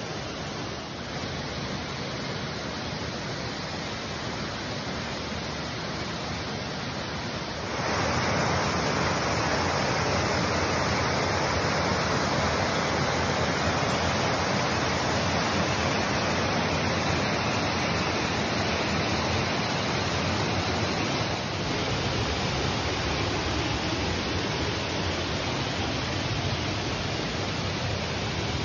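Waterfall rushing, a steady even roar of water that jumps abruptly louder about eight seconds in and eases back slightly around twenty-one seconds.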